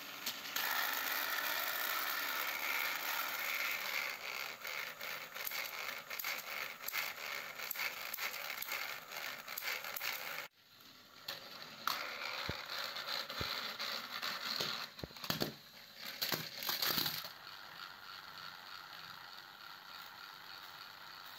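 Small electric motors and gears of battery-powered Plarail toy trains whirring steadily on plastic track, with wheel clicks. There is a sudden break about ten seconds in. A burst of plastic clattering follows a few seconds later as the engines come off the track, then a quieter whir.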